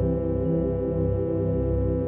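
Calm ambient background music with sustained, held tones.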